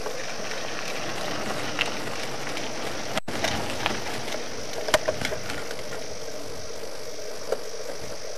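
Steady outdoor background hiss with a faint hum, broken by a few scattered clicks and knocks from the camcorder being handled and swung. About three seconds in, the sound drops out completely for an instant.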